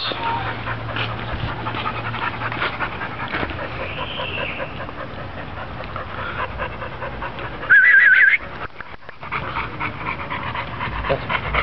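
Pit bull panting rapidly and rhythmically, mouth open. About eight seconds in there is a brief, loud, high wavering tone, and the panting is quieter for about a second after it.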